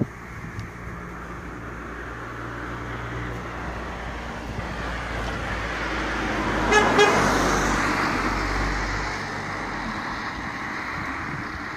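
A car passing on the street: its engine and tyre noise builds to a peak about seven seconds in, then fades away. A brief car horn toot sounds at the peak.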